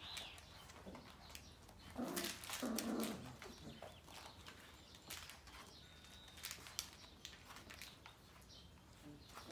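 Sheepadoodle puppies play-fighting, with a burst of puppy vocalizing lasting about a second, a little after two seconds in. Light scuffling and scattered clicks run under it.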